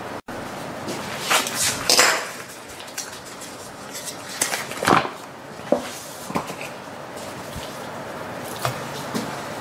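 Hands handling cut raw chicken pieces in a glass mixing bowl: soft scraping and rustling, then a few short sharp clinks and knocks against the glass.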